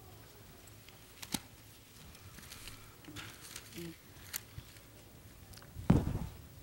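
Bible pages being turned and paper rustling close to a pulpit microphone, with a few light clicks and a dull thump near the end.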